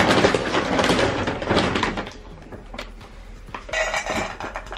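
Dry cat kibble rattling and rustling as a ladle scoops it out of the food bag, then clattering into a cat's bowl about four seconds in.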